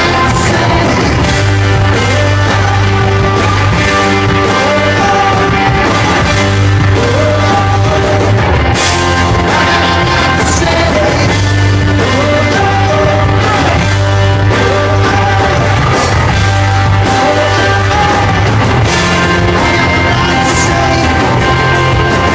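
Rock band playing live at full volume, with sharp crashes about 9 and 16 seconds in.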